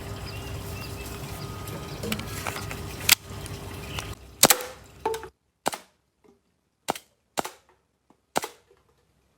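WE Hi-Capa 5.2 airsoft pistol, converted to run on HPA from an air tank, firing single shots: about seven sharp cracks at uneven intervals from about three seconds in.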